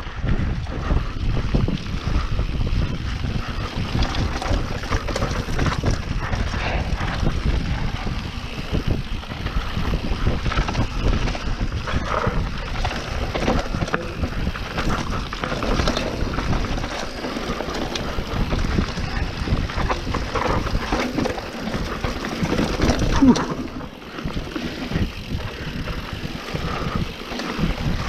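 Wind buffeting a helmet-mounted action camera's microphone during a fast mountain bike descent, with the YT Capra's tyres and frame rattling and clattering over loose, rough trail. The noise dips briefly near the end.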